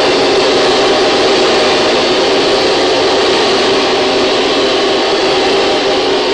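A loud, steady machine-like drone: dense noise with several held tones, unchanging throughout.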